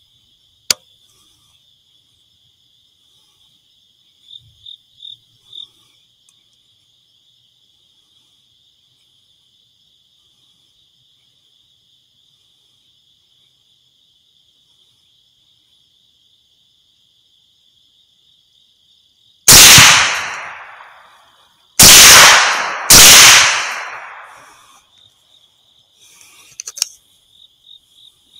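Three .308 rifle shots, the second about two and a half seconds after the first and the third a second later, each followed by a long echo fading over a second or two. A steady high chirring of crickets runs underneath.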